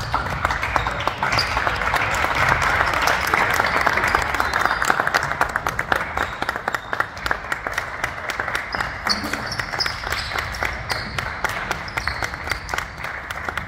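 Crowd applauding in a gymnasium, heaviest in the first half and tapering off after that, with short high squeaks coming and going throughout.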